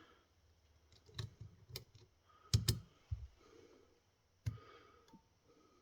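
Scattered sharp clicks and taps of small snowblower starter parts being worked by hand, with two loud clicks close together about two and a half seconds in.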